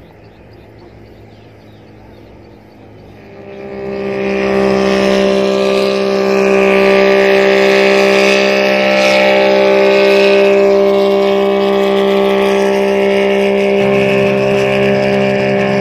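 An engine running steadily at one pitch, swelling in about three seconds in and staying loud until it cuts off abruptly.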